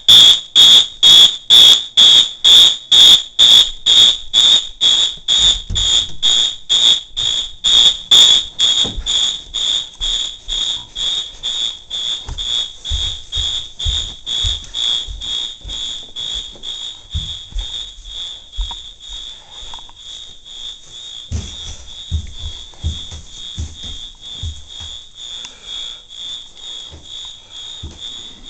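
Fire alarm horn sounding in march time, a high-pitched tone pulsing about twice a second, growing steadily fainter with distance as the listener moves through other rooms.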